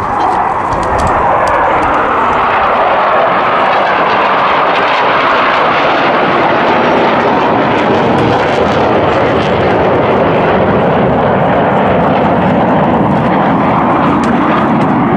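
Loud, steady jet noise from the Blue Angels' twin-engine F/A-18 Hornets flying over in close formation.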